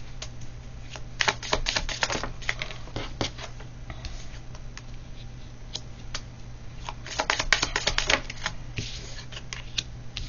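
A deck of divination cards being shuffled by hand: two bursts of rapid flicking and snapping, about a second in and again about two-thirds of the way through, with scattered single clicks between, over a steady low hum.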